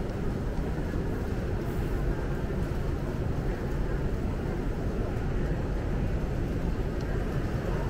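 Steady ambient rumble of a large train-station concourse, with no distinct sounds standing out.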